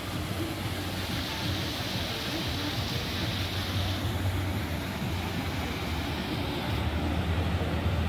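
Engine of a passing river cruise boat running steadily, a low hum over a wash of water noise; the hum grows louder near the end.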